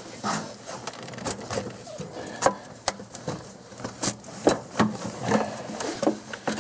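Rubber air intake boot and plastic intake duct being twisted and pulled off the throttle body by hand: irregular scrapes, creaks and sharp clicks of rubber and plastic as the assembly resists coming free.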